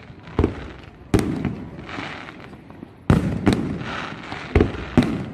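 Aerial fireworks going off: about six sharp bangs of shells bursting, each trailing off, with a hissing, crackling wash in between.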